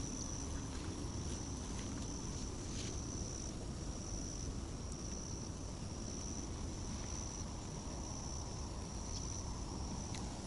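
Crickets trilling: a continuous high-pitched insect song with slight breaks, over a low steady rumble of outdoor background noise.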